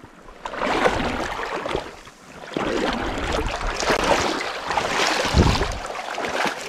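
Sea water washing and sloshing around shoreline rocks close to the microphone, in two long surges, with a low thump about five seconds in.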